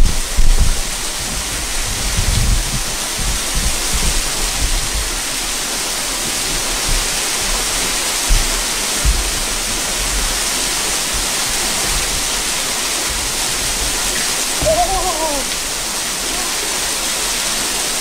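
Steady rush of falling water from a small river cascade. Wind buffets the microphone in the first few seconds, and about fifteen seconds in a short call rises and falls in pitch.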